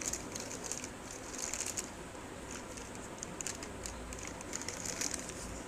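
Clear plastic packaging bag crinkling irregularly as a hand handles the juicer jar of a mixer grinder inside it.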